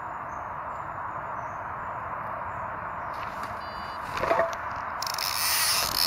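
Steady rushing background noise. From about three seconds in come scattered clicks and then a louder rustling as a fishing rod and its spinning reel are picked up and handled; this is loudest near the end.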